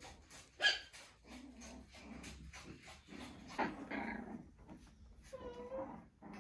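Six-week-old Maltese–Shih Tzu mix (Malshi) puppies making small growls and yips as they play, with a short high whine near the end.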